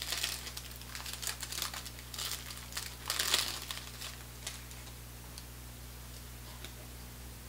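Wax-paper wrapper of a 1988 Topps Big Baseball Cards pack crinkling as it is torn open by hand, loudest about three seconds in. It dies down to a few faint ticks after about four and a half seconds as the cards are slid out.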